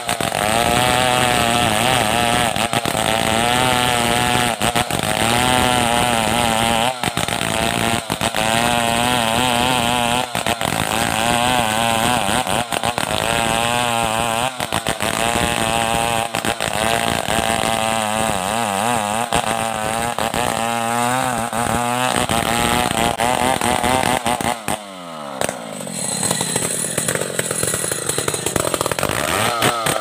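Stihl 070 two-stroke chainsaw running at high revs while ripping lengthwise through a log, its pitch wavering as the chain bites. Near the end the engine note falls and dips briefly, then climbs back up.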